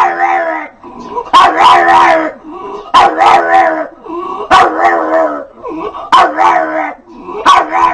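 A dog giving a run of drawn-out, howling barks, about one every second and a half. Each starts abruptly and then wavers in pitch, like the dog is trying to talk.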